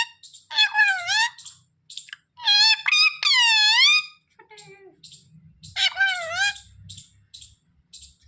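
Pet parrot giving about four drawn-out calls that rise and fall in pitch, with short high chirps in between.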